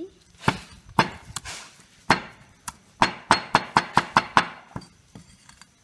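A cleaver chopping Thai basil leaves on a thick wooden chopping board. A few separate knocks come first, then a quick run of about eight chops at roughly six a second a little past the middle.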